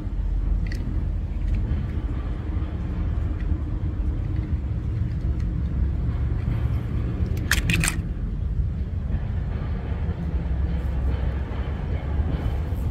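Low, steady vehicle rumble, with two or three short, sharp clicks about seven and a half seconds in.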